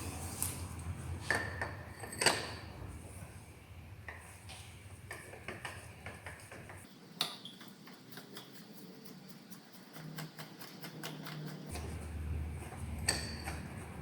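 Metal tools and spark plugs being handled, sharp ringing metallic clinks a few times, with a run of rapid light ticks around the middle.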